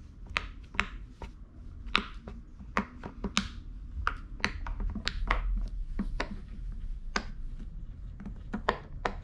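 Silicone pop-it fidget toy bubbles being pressed through one after another, an irregular string of small pops, a couple a second.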